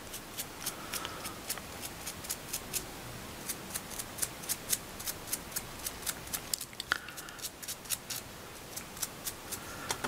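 A paintbrush dabbing silver paint onto a small coiled polymer-clay nest, making a run of light, dry ticks, roughly three a second and irregular.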